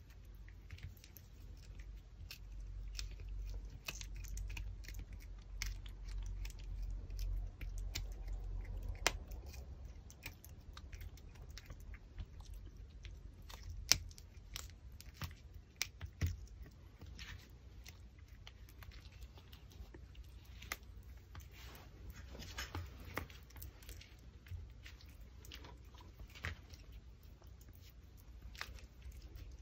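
Pomeranian puppy chewing and gnawing a raw pork backbone: irregular crunches and sharp clicks of teeth on bone and meat, coming in uneven bursts with short pauses.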